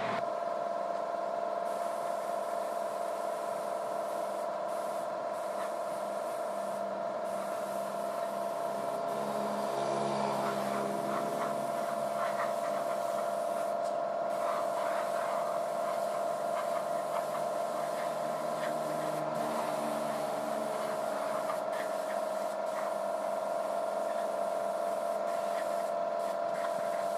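Air spray gun hissing as it sprays primer onto a bare motorcycle frame, over a steady whine.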